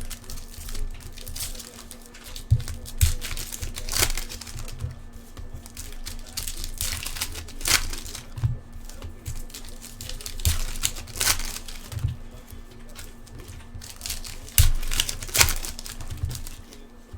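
Foil wrappers of trading-card packs crinkling and tearing as they are opened by hand, in irregular bursts with low knocks of handling between them. A faint steady hum runs underneath.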